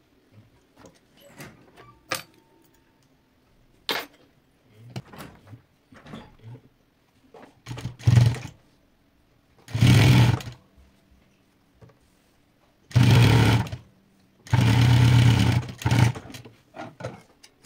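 ZOJE industrial lockstitch sewing machine stitching fabric in short runs: scattered clicks and brief starts in the first half, then four louder runs of about a second each, the longest near the end.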